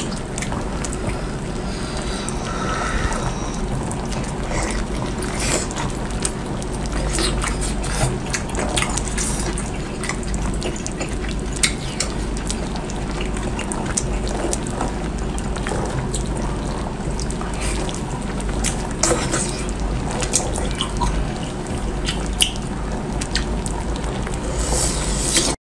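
Close-miked wet eating sounds: sea snail meat being pulled out and sucked and chewed, with many small clicks and wet smacks over a steady hiss and low hum. It cuts off suddenly at the end.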